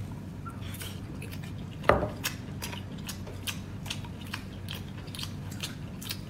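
Eating seafood: one knock about two seconds in, then a run of short, sharp clicks and crunches of utensils and shells, over a steady low hum.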